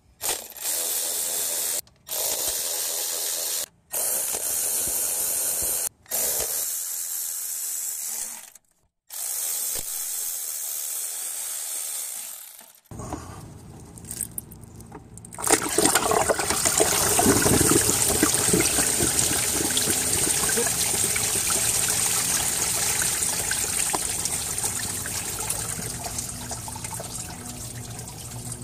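Engine coolant pouring out around the water pump of a Honda J32 V6 as the pump is unbolted. The flow starts suddenly about halfway through and slowly eases off. Before it comes a steady hiss in short stretches with abrupt cuts.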